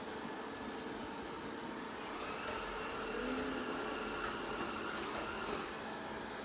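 360 Smart Life S9 robot vacuum cleaner running mid-clean: a steady whir and hiss with a few faint tones that shift slightly in pitch partway through.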